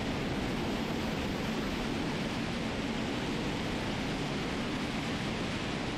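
Hermeus Chimera turbine-based combined-cycle engine running on a test stand: a steady, even rushing noise of its exhaust that holds level throughout.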